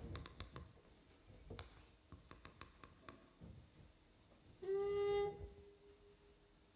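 A single held trumpet note comes in sharply about two-thirds of the way in and then fades away, after a few soft, scattered clicks.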